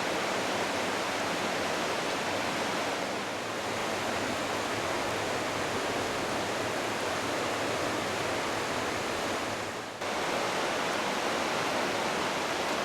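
Smith River running in flood: a steady, unbroken rush of fast, high water, dipping briefly about ten seconds in.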